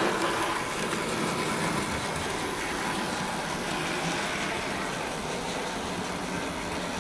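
Dapol BR Class 22 model diesel locomotive running on the layout's track: a steady hum of its small electric motor and gears with the wheels running on the rails.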